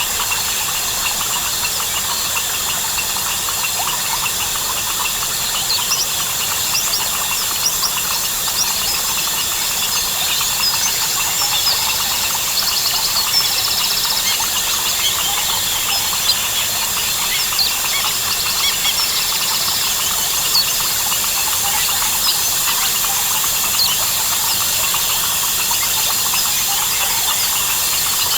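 Dense rainforest night-and-day chorus: a steady high-pitched drone of crickets and other insects, with many short bird and frog calls scattered throughout.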